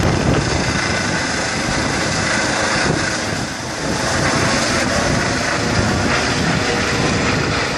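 Rescue helicopter's rotor and turbine running steadily as it climbs away overhead after takeoff, with a brief dip in level about three and a half seconds in.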